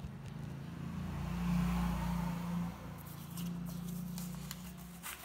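A steady low engine drone grows louder about a second in and stops near the end. Over its last two seconds come a few sharp clicks and rustles of the paper sheet being handled.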